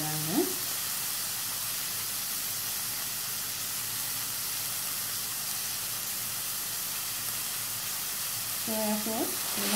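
Diced chicken, onion and carrot sizzling steadily in hot coconut oil in a stainless-steel pan. A voice is heard briefly at the very start and again near the end.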